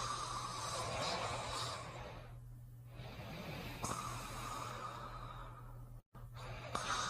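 Slow, heavy breathing of a sleeper: long noisy breaths about every two seconds, over a steady low hum. The sound breaks off for an instant about six seconds in, then the next breath begins.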